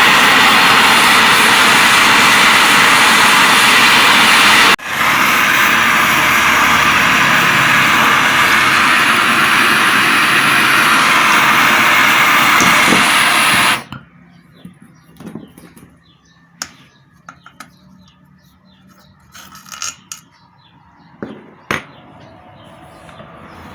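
Blowtorch flame hissing steadily while heating a rusted motor-mounting screw on a water pump to free it without snapping it; it breaks briefly about five seconds in and cuts off suddenly about fourteen seconds in. Afterwards come scattered small clicks and knocks of tools and metal parts being handled.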